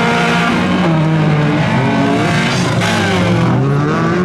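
Several small-displacement stock cars (modified class, up to 1800 cc) racing together. Their engines rev up and down, and the overlapping pitches rise and fall as the cars accelerate and lift off.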